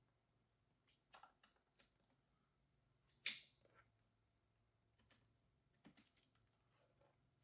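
Faint handling noise: a few scattered light clicks and brief rustles from plastic vacuum parts and packaging, with one sharper click or snap about three seconds in.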